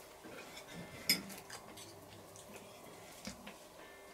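Cutlery clinking lightly against a plate while eating: a few scattered clicks, the clearest about a second in, over a faint steady hum.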